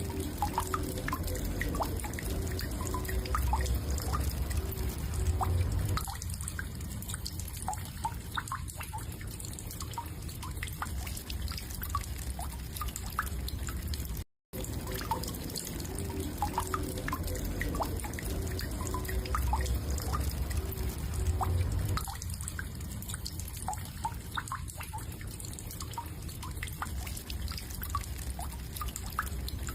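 Looped recording of woodpecker sounds: scattered short, high ticks and pips over a steady low hum, breaking off for an instant about halfway before the same passage repeats.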